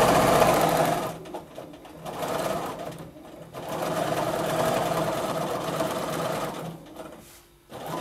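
Bernina domestic sewing machine stitching at speed in free-motion quilting, running in spurts as the quilt is guided: a run of about a second, a short burst, a longer run of about three seconds, then a brief stop before it starts up again near the end.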